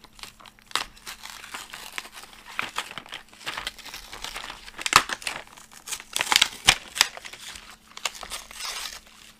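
Cardboard-and-plastic blister pack of washi tape rolls being torn open by hand: cardboard tearing and plastic crinkling, with sharp snaps, the loudest about halfway through and again around seven seconds in.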